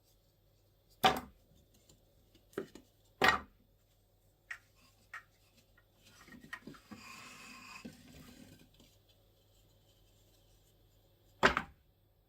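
Wooden pieces being handled, knocking and clattering against each other and a hard surface: about six separate sharp knocks, the loudest about a second in and one near the end, with a short rustling scrape in the middle.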